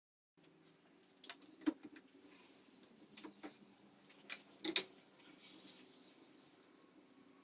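Workshop handling sounds: several sharp clicks and knocks, the loudest two about a third of the way in and past the middle, as a softwood board is shifted against a table-saw fence and a steel tape measure is laid along it, over a faint steady hum.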